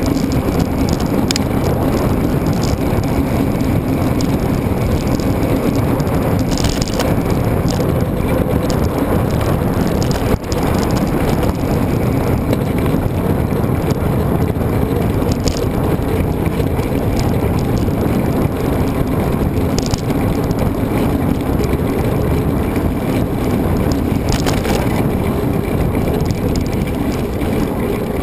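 A mountain bike ridden along a trail: a steady, loud rush of wind on the microphone over the bike's rolling noise, with a few brief knocks.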